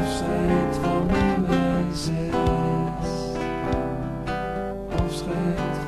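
Instrumental passage of a song: strummed acoustic guitar with no singing.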